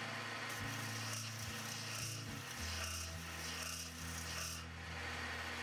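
Metal-spinning lathe running with a steady low hum, while something is rubbed against the spinning metal blank: a scratchy, rasping friction noise for about four seconds.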